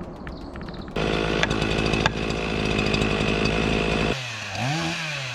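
Two-stroke chainsaw running hard, starting abruptly about a second in; about four seconds in the engine pitch begins rising and falling over and over as the throttle is revved up and let off.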